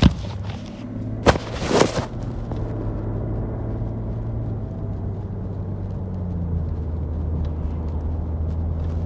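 Steady low road and drivetrain drone inside the cabin of a moving BMW 535d E61 estate, slowly getting louder in the second half. A few loud knocks cluster in the first two seconds.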